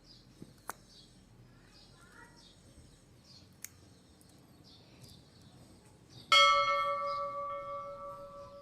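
Small birds chirping repeatedly in the background. About six seconds in comes a single sharp metallic strike that rings on with a clear bell-like tone and fades slowly.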